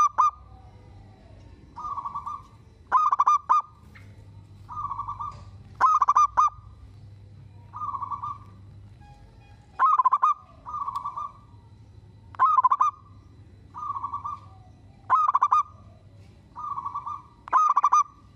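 Zebra dove (perkutut) cooing: loud, rippling staccato phrases alternate with softer, smoother single coos, one call about every second and a half.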